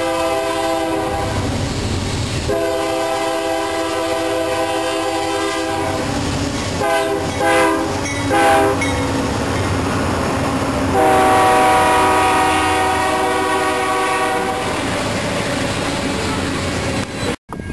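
Union Pacific diesel freight locomotives blowing a multi-chime air horn in a pattern of long, long, short, long, the grade-crossing signal, as the train comes up and passes, over the steady rumble and clatter of the engines and freight cars. The sound cuts out briefly near the end.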